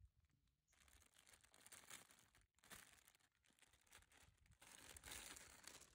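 Faint crinkling of a thin clear plastic bag being handled, with a toy water gun inside it; a little louder near the end.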